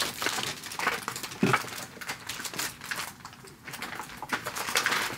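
Packaged plastic items being handled and shuffled: irregular rustling and crinkling with light clicks and taps.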